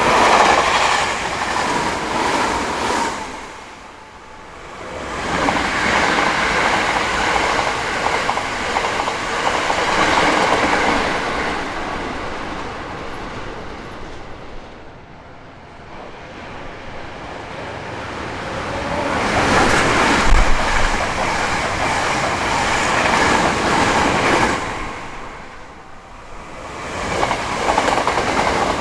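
Hankyu Kyoto Line trains passing a railroad crossing, wheels clattering over the track. The sound comes in loud waves as one pass follows another, with quieter lulls about four seconds in, around the middle, and shortly before the end.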